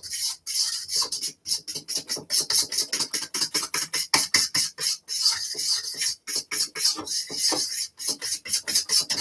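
A fork whisking plantain waffle batter in a bowl: a steady run of quick strokes of metal against the bowl, several a second, with a few short pauses.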